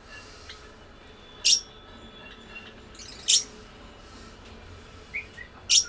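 Lovebirds giving short, shrill squawks three times, about two seconds apart, with a faint chirp near the end.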